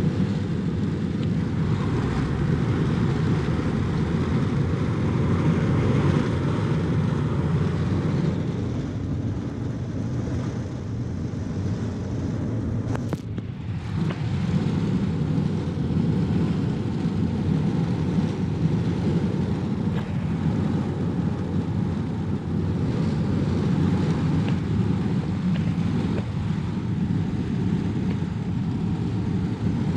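Steady road and engine noise inside the cab of a vehicle driving at highway speed, with a short break about halfway through.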